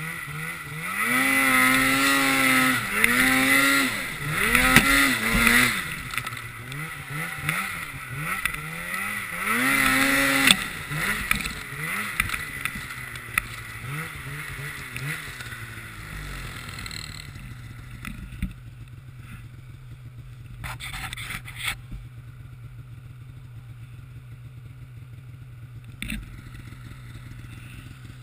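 Polaris snowmobile engine revving up and down again and again for the first ten seconds or so, then running steadily at low revs for the rest. A few brief knocks near the end.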